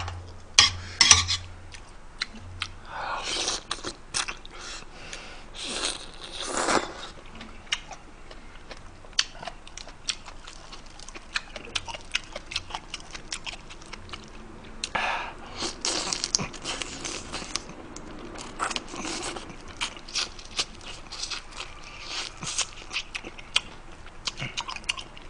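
Crunching and chewing on spicy stir-fried swimming crab, crab shell cracking between the teeth in many short crackles and clicks.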